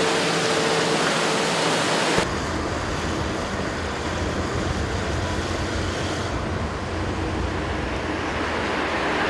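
Water gushing from a pipe into a steel vat: a dense, steady hiss with a faint hum that fades about a second in. A little over two seconds in, it cuts off abruptly to outdoor ambience with a steady low rumble.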